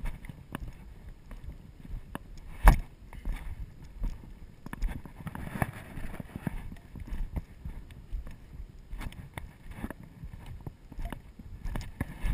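A hiker's footsteps on a rocky dirt trail, with irregular knocks and rubbing against a body-worn action camera; one sharp knock about two and a half seconds in is the loudest.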